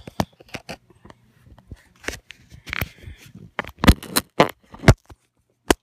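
A protective case being fitted onto a smartphone right at its microphone: a series of sharp plastic clicks, knocks and scrapes, the loudest snaps about two thirds of the way through.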